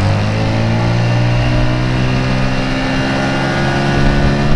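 Small boat's motor running under throttle, its note slowly climbing as the boat gathers speed to get up on plane.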